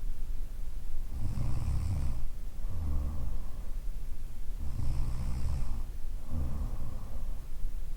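A woman snoring. Each breath brings a low, rattling snore of about a second, then a shorter one, and the pair repeats about every three and a half seconds.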